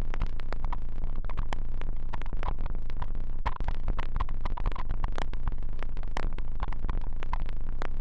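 Experimental electronic soundtrack: a dense, irregular stream of clicks and crackles over a steady low hum, with short bleeps now and then.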